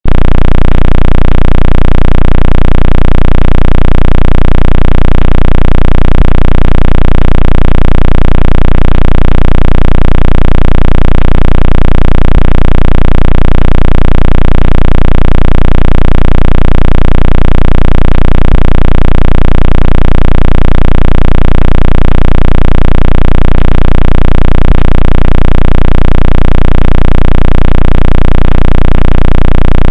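Synthetic water-ejection tone for phone speakers at full volume: a steady, very loud, deep electronic hum that pulses regularly a few times a second. It is meant to shake water out of a phone's speaker grille and charging port.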